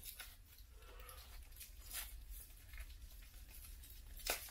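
Faint crinkling and rustling of bubble wrap being unwrapped by hand, with a sharper crackle about four seconds in.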